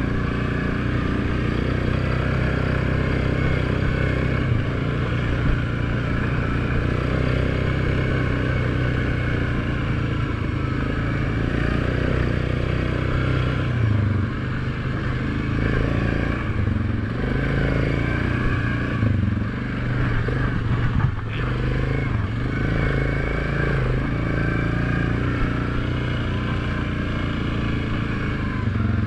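ATV engine running at steady cruising throttle on a dirt trail, with some rattle from the machine. The engine note dips briefly about fourteen seconds in and again at the very end as the throttle eases, and there is one sharp knock about two-thirds of the way through.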